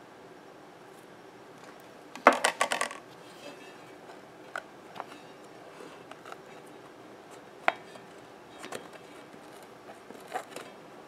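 Small hard objects clinking and knocking: a short clatter about two seconds in, then a few scattered single clicks and taps.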